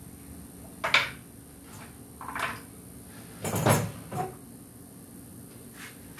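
A handful of short knocks and clatters of hard objects, about five in all, the loudest about a second in and near the middle, over a steady low hum.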